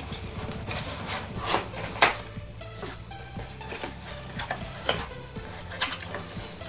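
Flaps of a small cardboard box being pried and folded open: a series of short papery scrapes, rubs and clicks, the sharpest about two seconds in. Quiet background music runs underneath.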